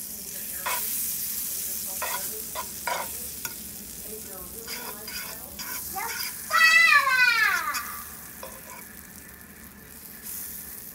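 Butter sizzling as it melts in a nonstick frying pan, with a metal fork scraping and clicking against the pan as it pushes the butter around. About six and a half seconds in, a loud high cry slides down in pitch for over a second.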